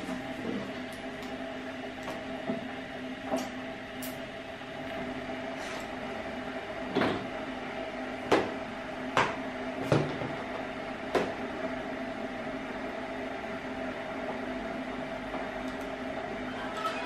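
Plastic plate and toys knocking and clattering on a plastic high-chair tray as a baby handles them: a dozen or so scattered sharp knocks, the loudest clustered in the middle. A steady background hum runs underneath.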